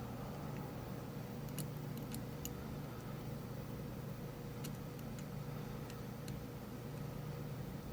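A few faint, sharp clicks of a short flag lock pick working the pins of a Rav Bariach LocX pin-in-pin cylinder, over a steady low background hum.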